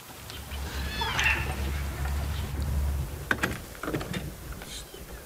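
A cat meows once, a short arched call about a second in, over a low rumble. A few sharp clicks or knocks follow between about three and four and a half seconds in.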